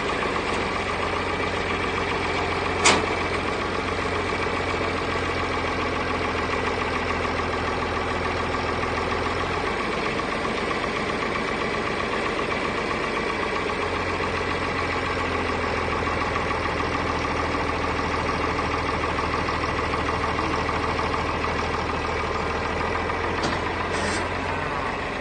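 Tractor engine running steadily. A low hum drops out for a few seconds midway and then returns, and there is a sharp click about three seconds in.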